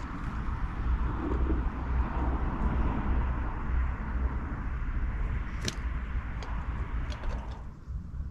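Steady outdoor noise with a strong low rumble and hiss, with a few sharp clicks in the second half; it falls away shortly before the end.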